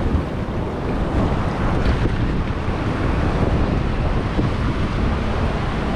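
Steady wind buffeting the microphone, over the wash of surf breaking on a rocky shore.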